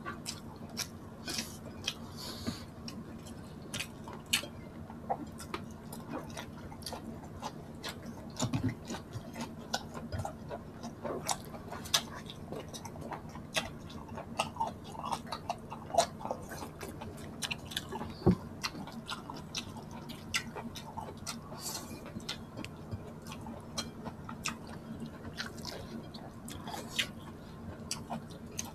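A person chewing and eating a mouthful of sinigang with salmon head and shrimp close to the microphone, with many short clicks throughout. A steady low hum runs underneath.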